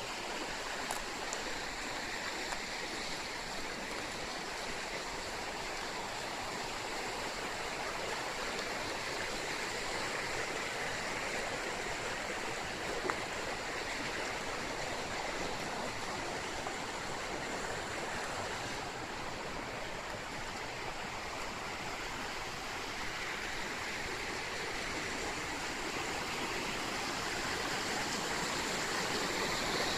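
Fast river water rushing steadily over rapids, growing a little louder near the end.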